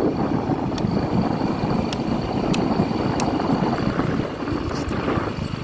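Yamaha Mio i125 scooter's engine running, a steady low rumble with a faint high whine above it.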